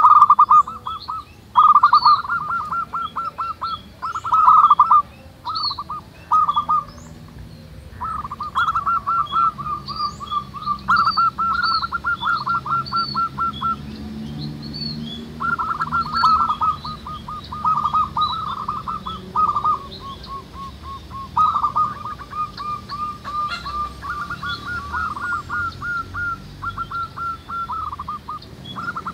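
Several zebra doves (perkutut) cooing, their rolling, repeated coo phrases overlapping almost without pause, with faint high chirps from small birds above them.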